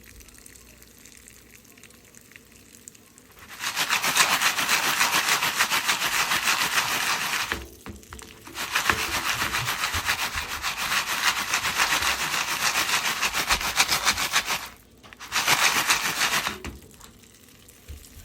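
A foil stovetop popcorn pan being shaken back and forth on the burner, a scraping rattle in three stretches: about four seconds, a short pause, about six seconds, then a brief burst near the end.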